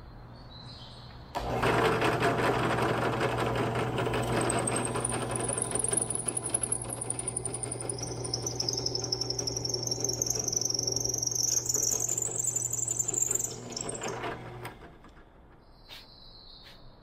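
Benchtop drill press switching on about a second in, its motor running with a steady hum while the bit bores through a wooden frame member; a high whine rises in pitch through the middle, and the motor cuts off near the end.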